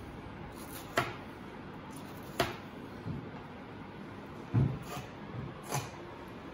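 A blunt butter knife working along a coral trout on a towel-covered bench: a handful of short, sharp clicks and knocks about a second or so apart, with a duller thump about two-thirds of the way through.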